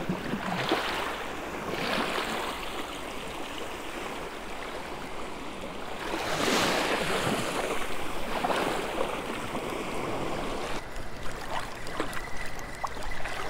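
Small surf waves washing in and draining back, rising in a few surges with the biggest about halfway. Faint ticks and a thin steady high tone come near the end.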